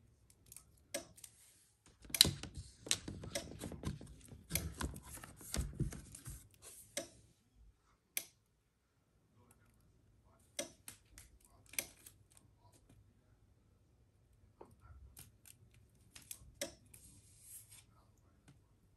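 Sublimation paper and tape being handled and re-taped: paper rustling and crackling with sharp clicks and snaps, busiest in the first several seconds, then scattered clicks.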